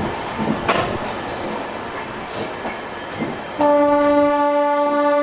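Passenger train rolling slowly, with a few sharp clicks of wheels over rail joints, then a long, loud, steady train horn blast that starts suddenly about three and a half seconds in.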